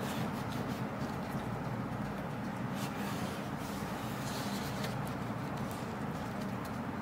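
A taped cardboard parcel being handled and turned over on a desk: a few faint rubs and taps against a steady low background hum.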